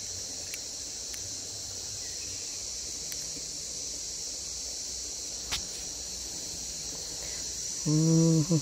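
Steady, high-pitched insect chorus, like crickets, that holds unbroken throughout, with one sharp click a little past halfway.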